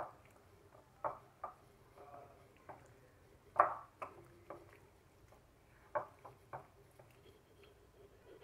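A hand mixing raw chicken pieces into a coating of cornflour, flour and sauces in a white bowl: faint, irregular squelches and taps against the bowl, the loudest about three and a half seconds in.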